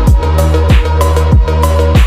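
Electronic dance music with a heavy kick drum on a steady beat, about one and a half beats a second, over a deep sustained bass.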